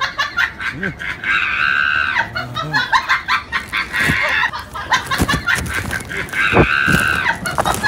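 Two long, drawn-out animal calls, the first about a second and a half in and the second near the end. Under them runs rapid clicking and knocking from a smartphone carried in a dog's mouth.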